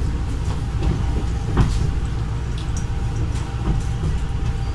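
Steady low rumble of a Philippine National Railways commuter train, heard from inside the carriage, with a single sharp knock about a second and a half in.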